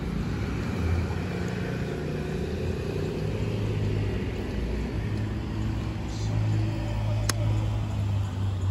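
Shallow stream water running around wading bare feet, under a steady low rumble, with a single sharp click about seven seconds in.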